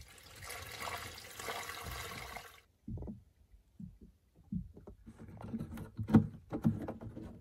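Gasoline pouring into a plastic jug for about two and a half seconds, then, after a short pause, scattered clicks and knocks as a fuel-line quick-connect fitting is worked at a plastic jerry can.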